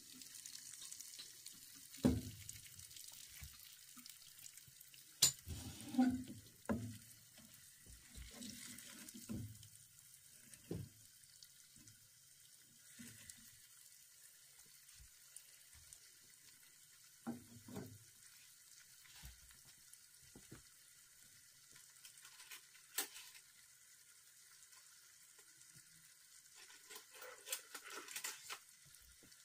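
Spice-coated boiled eggs sizzling in hot oil in a non-stick wok, a steady hiss. A wooden spatula knocks and scrapes against the pan now and then, most busily near the end.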